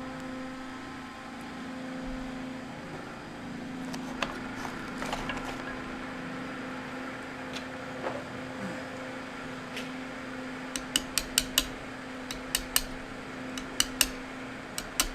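Sharp metal clicks and taps, a few scattered at first and then a quick run of about a dozen in the last four seconds, as a snug copper washer is worked onto a tractor hydraulic coupler. A steady low hum runs underneath.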